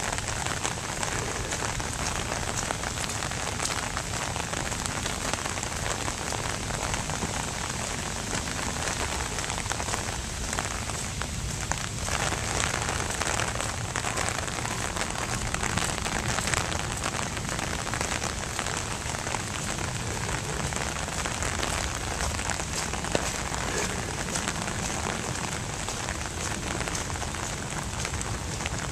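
Steady rain falling: a dense, even hiss of rain with close individual drops ticking through it.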